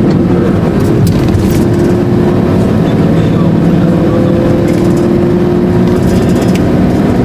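Vehicle engine running with a steady, even hum at cruising speed, mixed with road and wind noise, heard from on board the moving vehicle.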